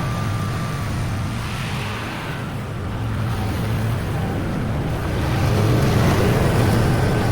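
Lawn mower engine running steadily under load while cutting grass, its drone swelling a little louder about five seconds in.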